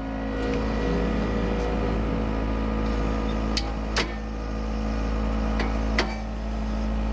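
Heavy equipment engine running steadily, with a few sharp knocks a little after three and a half, four, five and a half and six seconds in.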